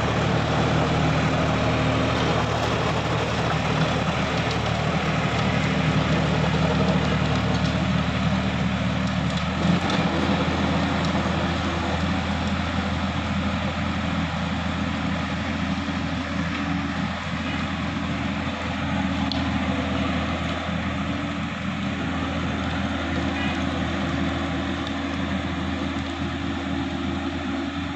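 Sonalika DI-50 RX tractor's diesel engine running steadily under load while it pulls a rotary tiller. It gets gradually quieter as the tractor moves away, and the engine note shifts slightly about ten seconds in.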